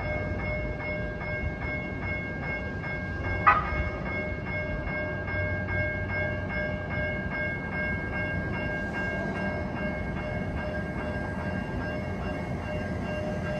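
Railway crossing warning bell ringing steadily at about three strikes a second, with one louder clang about three and a half seconds in, as a Siemens S700 light rail train approaches.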